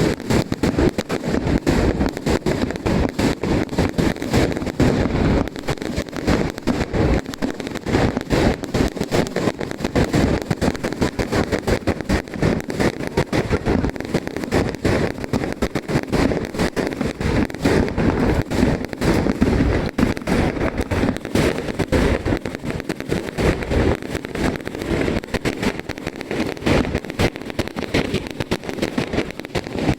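Fireworks display going off in a dense, unbroken run of bangs and crackles, many shells bursting a fraction of a second apart.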